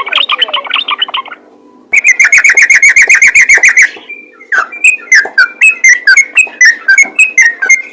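Yellow-vented bulbul (trucukan) singing in rapid, chattering runs of short repeated notes, with a brief pause about a second and a half in, then a fast even run and a string of quick dropping notes.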